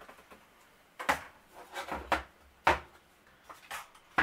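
A small plastic drone being handled and set down on a wooden desk: a quiet first second, then a string of sharp knocks and clatters.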